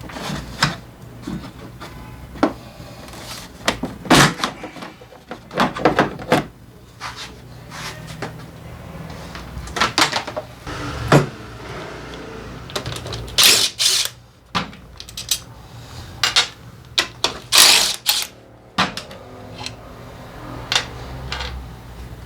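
Hand tools and loose metal parts clicking and clanking irregularly, with several louder knocks near the middle, over a steady low hum.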